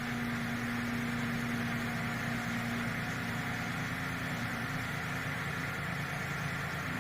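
Renault Triber's 1.0-litre three-cylinder petrol engine running steadily at a raised idle of about 1500 rpm just after a cold start. The fast idle comes from the car having stood for three or four days and is about to settle toward 1000 rpm.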